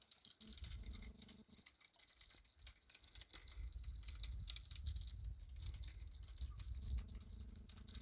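Insects chirring steadily in a continuous high band, with a low rumble underneath.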